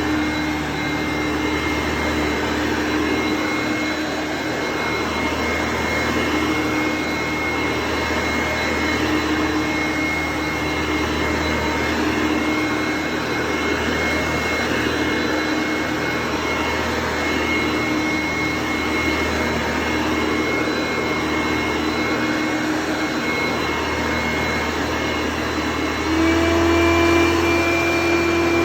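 1990 Hoover Innovation upright vacuum cleaner running with a steady motor whine. About three seconds before the end the whine steps up in pitch and gets louder.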